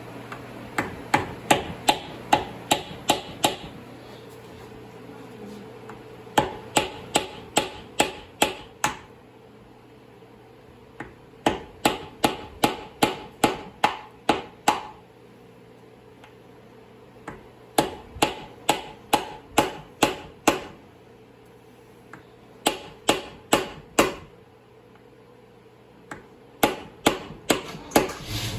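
Hammer striking a screwdriver to drive it behind the tail-shaft seal of an aluminum Powerglide transmission's extension housing. The blows come in six runs of quick strikes, about three a second, with pauses between. The seal is stubborn, harder to get out than most.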